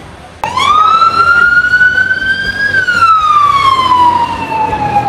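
Emergency vehicle siren wailing, starting suddenly about half a second in: one slow rise in pitch over about two seconds, then a slower fall.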